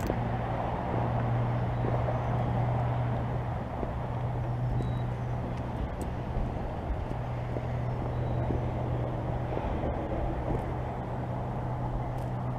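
Steady low drone of a car's engine and road noise, a constant hum with a hiss over it.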